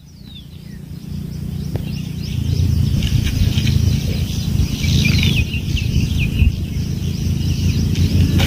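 Small birds chirping: short, quick falling chirps, mostly in a cluster about halfway through. Underneath is a low rumble that builds over the first couple of seconds and then holds.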